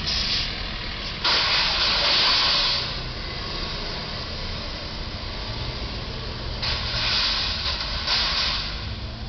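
Road traffic at an intersection: vehicles driving through with a steady low rumble, broken by two bursts of hiss, one about a second in and one about seven seconds in, each lasting a second or two.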